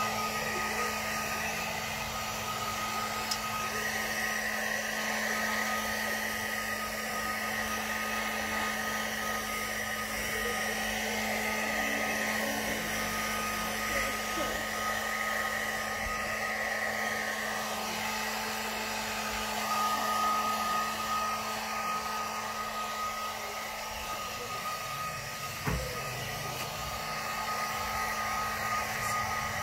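Hair dryer running steadily while it dries a wet kitten's fur after a bath: a constant rush of air with an even motor whine.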